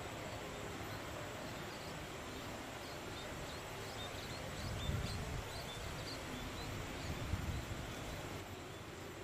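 Outdoor background hiss with a run of short, high chirps, about three a second, from a small creature, and two low thumps a couple of seconds apart.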